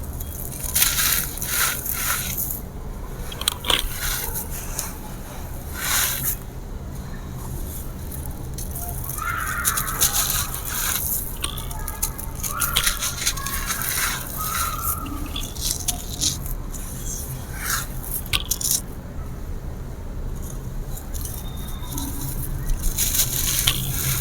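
Dry grey concrete mini slabs crumbling: irregular crunches and gritty crackling breaks with scraping between them, over a steady low hum.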